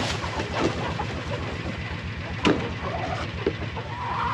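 An engine idling steadily with an even low throb, with a few sharp clicks or knocks over it, the loudest about two and a half seconds in.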